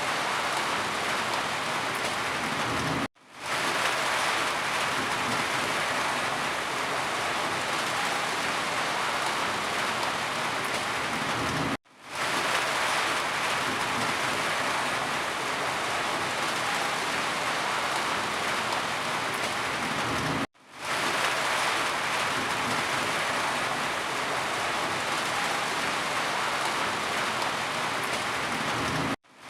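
Steady, heavy rain falling, a dense even hiss. It cuts out abruptly three times, about every nine seconds, and swells back in each time.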